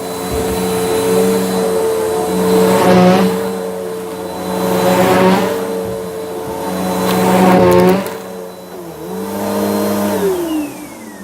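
Bissell vacuum cleaner running with a steady motor whine, its brushroll crunching through debris in swells about every two seconds. Near the end it is switched off and the motor winds down, its pitch falling.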